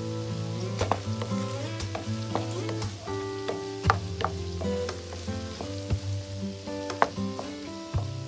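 Shrimp sizzling in butter and garlic in a nonstick frying pan while a wooden spatula stirs them, with sharp clicks of the spatula knocking the pan, loudest about four and seven seconds in. Soft background music with held notes plays underneath.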